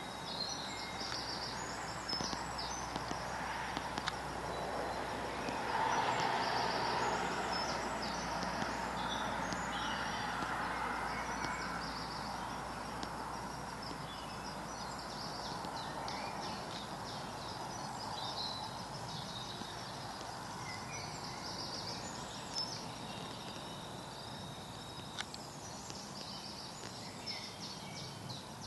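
Woodland ambience: songbirds chirping and trilling against a steady background rush, which swells for a few seconds about six seconds in.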